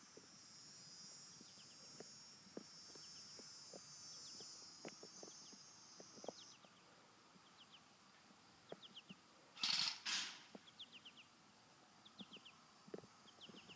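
Quiet outdoor ambience: a steady high insect buzz that stops about six and a half seconds in, small birds chirping in quick little series of two or three notes, and scattered light ticks. About ten seconds in come two short, loud, noisy bursts close together.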